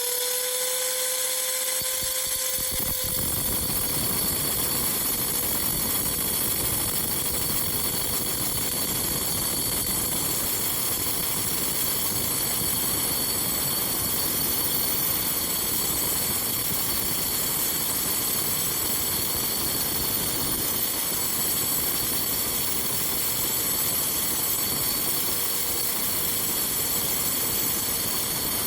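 Angle grinder running at a steady speed with a constant whine, its disc cutting through a quartz geode. Starting about three seconds in, a rough grinding hiss from the disc in the stone fills in under the whine.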